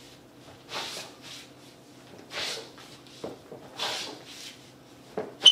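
Sneaker soles sliding and scuffing on a hard floor during Melbourne Shuffle glide steps, a run of short swishes about every second to second and a half. A sharp rubber squeak comes right at the end.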